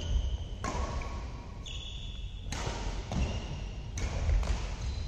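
Badminton rackets striking a shuttlecock in a doubles rally: three sharp hits, spaced a second and a half to two seconds apart. Short high squeaks of court shoes and the thud of footwork come between the hits, over a low hall rumble.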